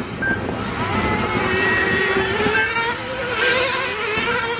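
Several 1:10 nitro RC touring cars' small two-stroke glow engines running at high revs around the track, a steady high-pitched buzz whose pitch wavers and slowly climbs as the cars accelerate and lift through the corners.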